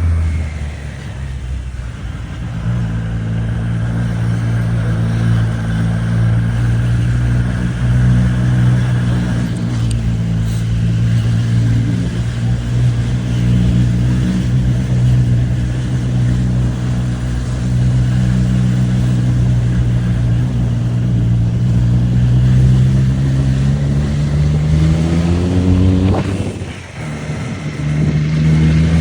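Triumph Street Triple RS 765 cc inline-three engine running under steady load, its note holding even for a long stretch. Near the end it rises in pitch, cuts off briefly, and picks up again.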